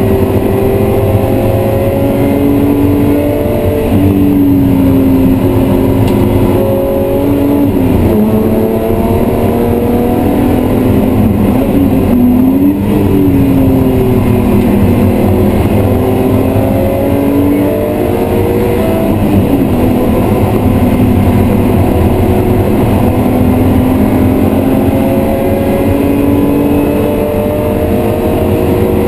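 BMW E36 M3's 3.0-litre straight-six heard from inside the cabin at full track pace, revs climbing steadily through each gear and dropping back sharply at gear changes and braking, several times over.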